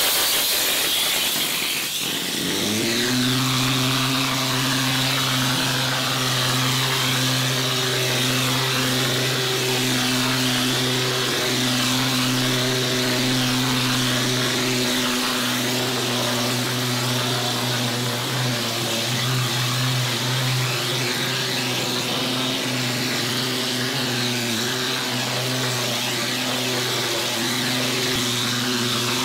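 Plastering machine (G4) spraying thin plaster through a compressed-air spray gun onto a wall: a loud, steady hiss of air and plaster, with a steady motor hum that rises to speed about two to three seconds in and then holds.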